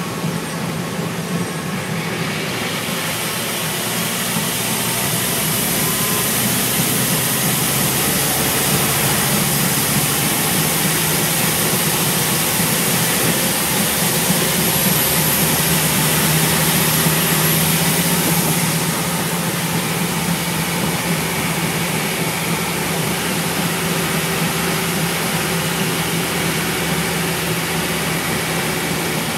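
Scania N230UB single-decker bus's engine running steadily under way, heard from inside the bus. A hiss of road and air noise builds over the first few seconds, holds, then eases off about two-thirds of the way through while the engine hum carries on.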